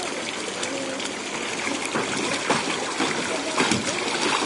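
Water running steadily, with a few brief splashes over it.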